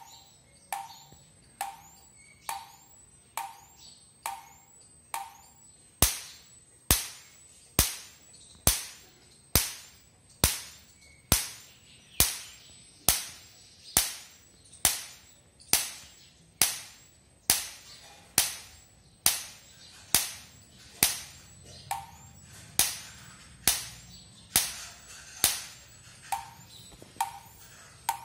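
12 kV electric fence energizer (jhatka machine) firing its high-voltage pulses: a sharp crack, each with a brief high ring, repeating evenly a little more than once a second.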